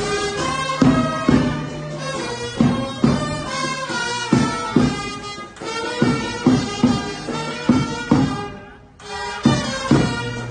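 Band music for a funeral procession: a sustained, reedy wind-instrument melody over a steady drum beat of about two strokes a second, with a short break a little before the end.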